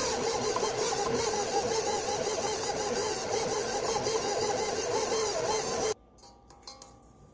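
Stand mixer motor running steadily while its dough hook kneads butter into brioche dough. The mixer sound stops abruptly about six seconds in, leaving near quiet with faint handling noises.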